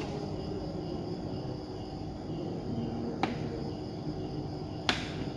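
Faint cricket chirping over steady low room noise, with two sharp clicks about three and five seconds in.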